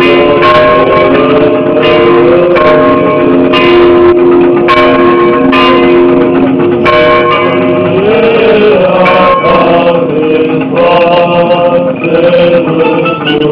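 Church bells ringing for the Orthodox Easter Resurrection: irregular strikes roughly once a second over a steady, overlapping hum of several bell tones.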